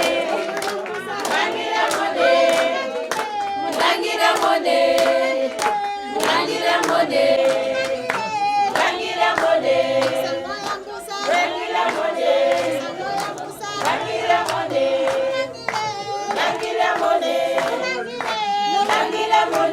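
A group of voices singing together in chorus, accompanied by steady rhythmic hand clapping.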